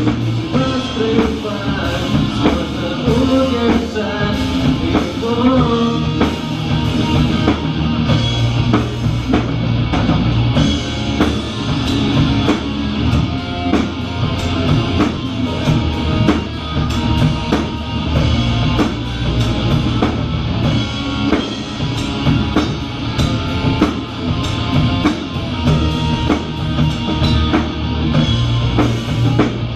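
Rock band playing an instrumental passage: electric guitar over bass and drum kit with a steady beat.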